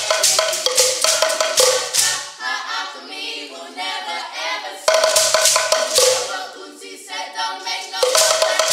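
Sekere, beaded gourd shakers, rattling in a quick rhythm with a hand drum. The percussion stops about two and a half seconds in for a stretch of several voices singing together, comes back about five seconds in, then gives way to singing again until it returns near the end.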